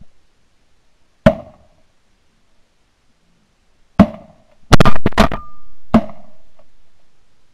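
Shotgun shots at ducks in flight: one shot about a second in, another near four seconds, then a rapid string of several shots around five seconds and a last one near six seconds, each trailing off briefly.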